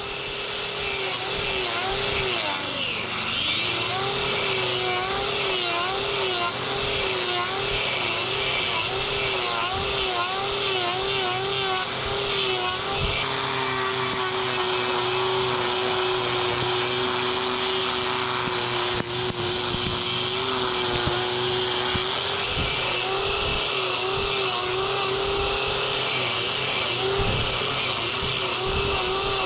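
Handheld angle grinder with a trimming disc running at speed and grinding the horn of a cow's overgrown claw. Its motor whine dips and recovers in pitch about once a second as the disc bites into the hoof, holds steady through the middle, then wavers again near the end.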